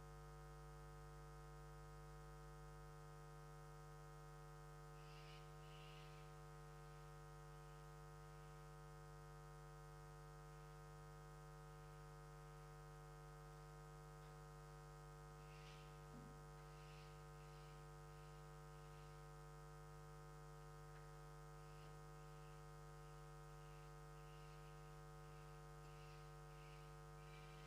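Near silence with a steady electrical mains hum and buzz, and a few faint, brief high sounds here and there.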